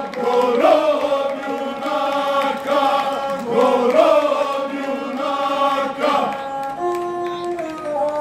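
Male folk singing group singing a traditional Serbian song together, with a gusle, a single-stringed bowed folk fiddle. Near the end the voices stop and the gusle carries on alone in steady held notes.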